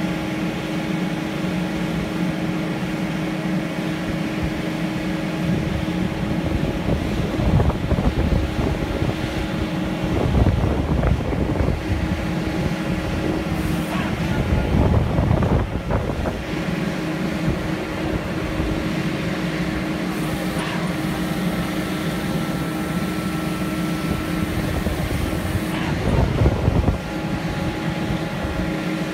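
Kubota SVL95 compact track loader's diesel engine running steadily, with several louder, rougher surges as its hydraulics move the Bradco HP600 cold planer attachment.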